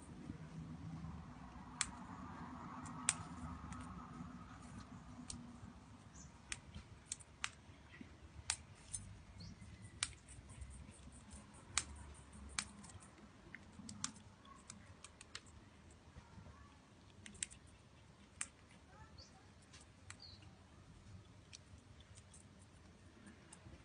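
Wild birds feeding: irregular sharp taps and clicks of beaks picking at seed, about one or two a second, with a few faint chirps.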